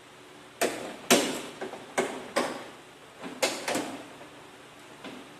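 A series of sharp clicks and knocks, about six in the first three-quarters: the Toyota Hilux's plastic air filter housing being unclipped and opened by hand.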